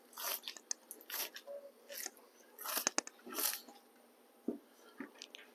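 Membrane being peeled by hand off a raw beef outside skirt steak: a run of short, soft, wet tearing sounds, with one sharp click about three seconds in.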